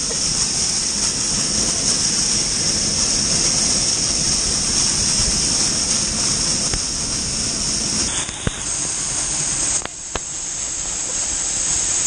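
Waterfall water pouring and spraying onto an action camera close up: a steady, loud rushing hiss, with a couple of brief dips near the end.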